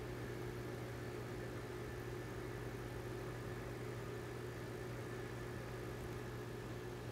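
Aquarium pump motor humming steadily, a constant low hum with no change.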